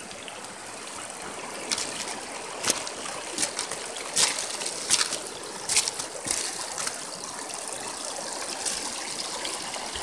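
A rain-swollen river rushing and trickling over shoreline rocks, a steady hiss of flowing water. From about two to six seconds in there is a run of short, sharp sounds close to the microphone.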